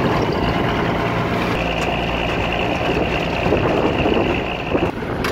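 Mercedes-Benz Unimog truck's diesel engine running as the truck drives, heard from its open cargo bed. A steady high whine joins about a second and a half in and stops shortly before the end.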